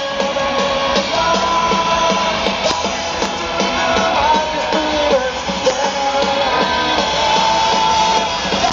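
Punk rock band playing live, heard from within the crowd: loud distorted electric guitars and drums under a sung lead vocal line with long held notes.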